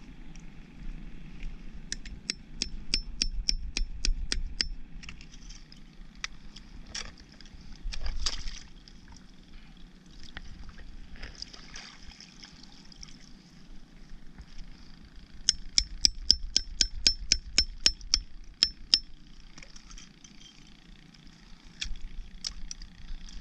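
Two quick runs of sharp metallic taps, about four a second, as a metal tool knocks oysters off a shell-encrusted cluster, with a few single knocks between. Water laps faintly underneath.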